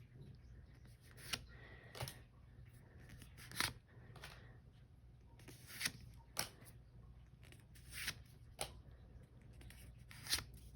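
Pokémon trading cards being handled and flipped through from a freshly opened booster pack: faint, scattered short swishes and snaps of card sliding over card, about ten over the stretch.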